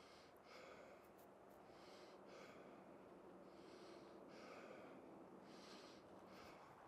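Faint footsteps shuffling through a carpet of dry fallen leaves, a soft swish about once a second, over a faint steady low hum.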